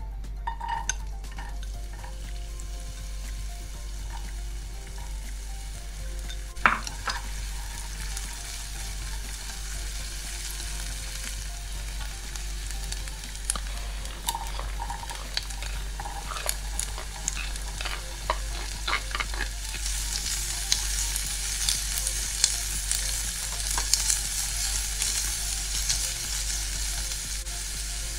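Diced onion frying in oil in a nonstick pan, sizzling steadily as it is stirred, with scattered light taps of a utensil against the pan and one sharper knock about a quarter of the way in. The sizzle grows louder about two-thirds of the way through.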